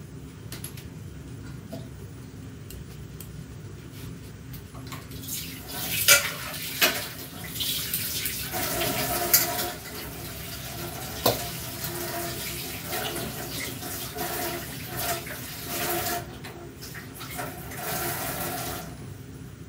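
Tap water running into a stainless-steel kitchen sink in stretches from about eight seconds in, as something is washed. There are a few sharp clinks of metal against the sink, mostly in the first half.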